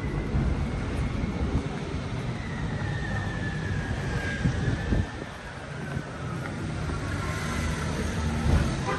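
City street traffic: a steady low rumble of passing vehicles, with a faint whine that slides slowly down in pitch and a short knock about halfway through.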